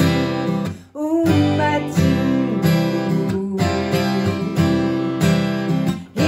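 Acoustic guitar strumming chords, breaking off briefly about a second in and again near the end.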